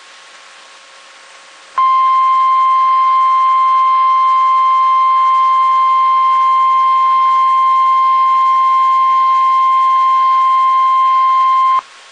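Weather alert tone: a single steady tone of about 1 kHz, the NOAA Weather Radio 1050 Hz warning alarm. It starts suddenly about two seconds in over a low hiss, holds for about ten seconds and cuts off abruptly.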